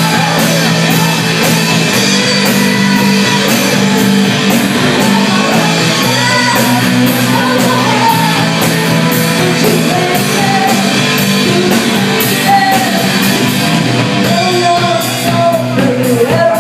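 A woman sings lead over a live rock band with a drum kit and an electric bass, loud and with a steady drum beat.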